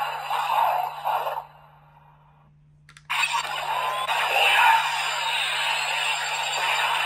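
Electronic sound effects from a Kamen Rider Gavv DX Valen Buster toy blaster, coming through its small built-in speaker. A stretch of its sung or voiced audio stops about a second and a half in. After a short silence there is a click near the three-second mark, and then a long, steady hissing blast effect begins.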